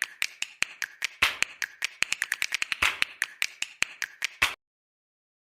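A rapid, irregular series of sharp taps, several a second, that stops abruptly about four and a half seconds in.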